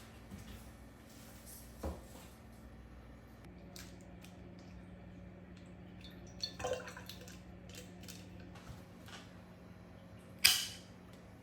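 Kitchen handling sounds: a few light knocks and clatters, then one sharp clink of dishware or a utensil near the end, over a low steady hum that comes in about a third of the way through.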